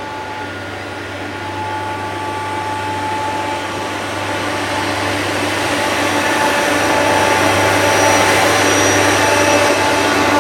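Multiple tie tamper track-maintenance machine running along the rails, its engine and wheel noise growing steadily louder as it approaches, with a faint steady whine above it.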